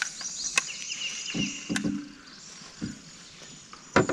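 Sharp knocks and bumps against a small fishing boat, the loudest about four seconds in, with high chirping of birds in the background.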